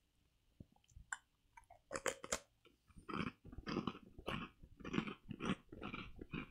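A bite into a large deep-fried rice cracker (senbei) about two seconds in, with sharp crunches. Crunchy chewing follows at about two chews a second.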